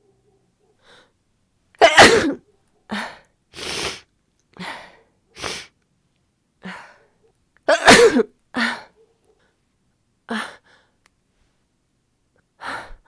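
A woman with a cold sneezing loudly twice, about two seconds in and again about eight seconds in, with shorter, quieter breathy sounds between and after the sneezes.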